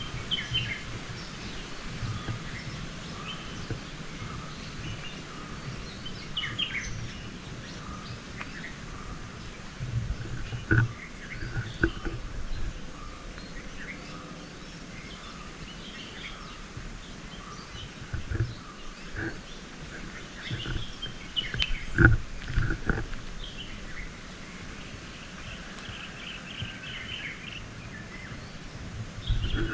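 Birds chirping and calling in short bursts throughout, over a low, uneven rumble, with a few dull thumps about 11, 12 and 22 seconds in, the one near 22 seconds the loudest.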